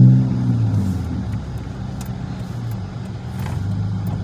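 Dodge Magnum's engine easing off after a hard pull, its loud note falling away in the first half second, then running at a steady, quieter drone while the car cruises.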